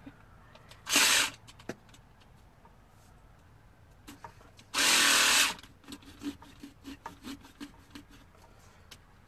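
Battery-powered pumpkin carving saw running in two short bursts, the second about twice as long as the first, as it cuts into the pumpkin. Light clicks and soft taps follow as the pumpkin is worked by hand.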